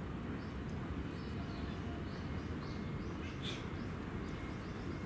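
Outdoor ambience: a steady low rumble with faint, high little bird chirps scattered through it, one a little louder about three and a half seconds in.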